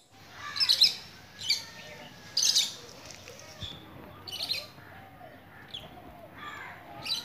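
Birds calling in short, high chirps and squawks, about one every second, some in quick pairs.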